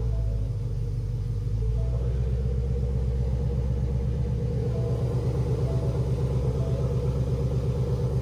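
2018 Ford Mustang GT's 5.0-litre Coyote V8 idling on a freshly loaded tune, heard from inside the cabin. It makes a low, evenly pulsing rumble that dips briefly about a second in, then holds steady.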